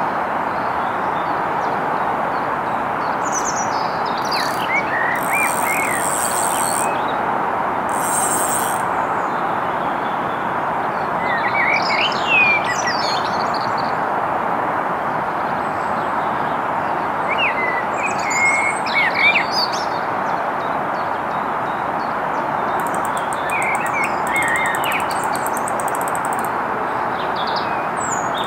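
Small birds singing in short chirping phrases, four or five times, over a steady outdoor hiss; a few bursts of a very high, fine buzz come and go.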